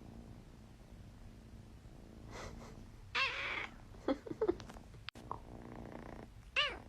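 A cat meowing: one loud meow about three seconds in, a few short chirp-like meows a second later, and another meow near the end.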